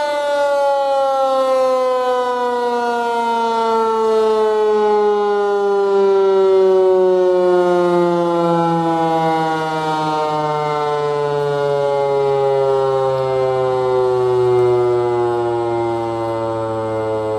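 Federal Signal 508 outdoor warning siren winding down after its alert-tone test, a loud, slowly falling wail.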